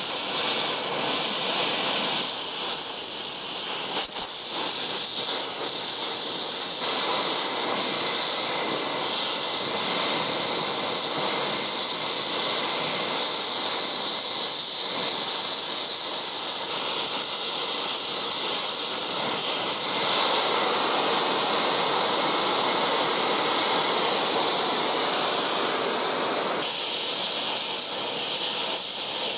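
Gas brazing torch flame hissing steadily as it heats cast iron and melts a flux-coated brazing rod into the joint. The gas is set too high, by the welder's own later account.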